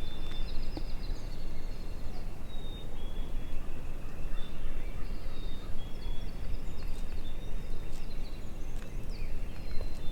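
Wind noise on the microphone, with small songbirds chirping and whistling in many short, high notes.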